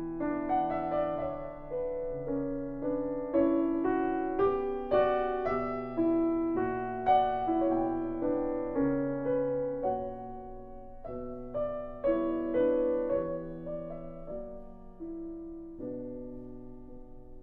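Background piano music: a slow melody of single notes and chords, each note striking and fading away.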